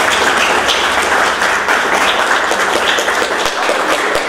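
A group of about twenty people applauding, many hands clapping at once in a dense, even patter.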